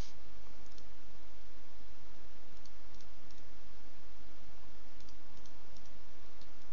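A few faint, scattered computer mouse clicks, some in quick pairs, over a steady microphone hiss and low hum.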